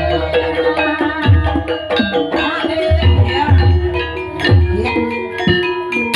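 Javanese gamelan music: ringing metallophone notes over a steady pattern of kendang hand-drum strokes.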